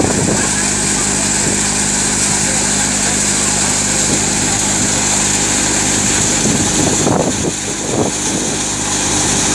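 Tractor-powered Shree Ganesh multi-crop thresher running steadily while threshing groundnut plants fed into it: a constant mechanical hum with a high hiss over it.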